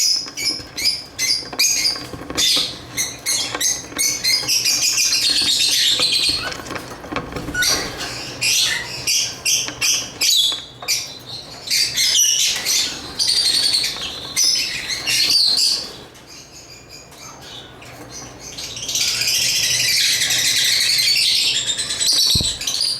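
Lovebirds chirping and chattering: rapid runs of short, shrill chirps and squawks, with a brief lull about two-thirds of the way through before a dense burst of chatter.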